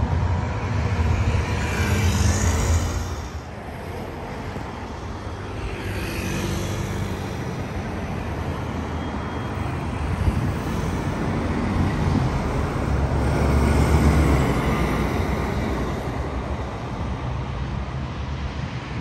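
Road traffic on a city street: several vehicles pass one after another, each swelling and fading with tyre noise. A heavy low rumble fills the first three seconds and returns about two-thirds of the way through.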